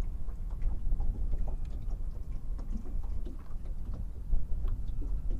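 Wind rumbling on the microphone and water lapping against a small boat's hull, with scattered faint ticks.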